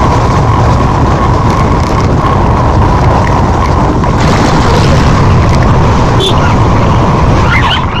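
Sport motorcycle on the move, heard from a camera riding along with it: the engine runs under a heavy rush of wind noise on the microphone, with a faint steady high tone.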